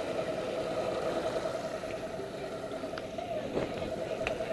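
Boat's outboard motors running steadily, a constant hum over the wash of water and wind, with a couple of light clicks in the second half.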